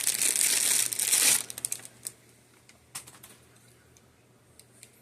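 Plastic packaging crinkling for about a second and a half, then a few light clicks of handling.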